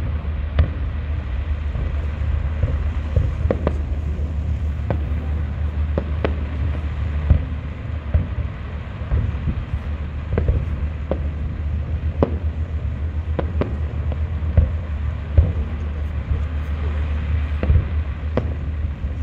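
Fireworks display: aerial shells bursting in many sharp bangs at irregular intervals over a continuous low rumble.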